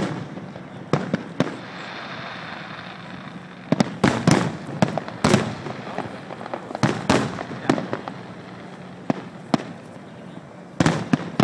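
Aerial fireworks shells bursting: a dozen or so sharp bangs at irregular intervals, some coming in quick clusters.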